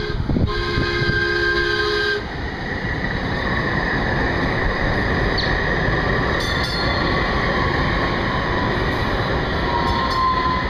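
DART light rail train sounding its horn, a chord of steady tones that cuts off about two seconds in, then the train passing close by with a steady rush of wheel and rail noise and a faint high whine.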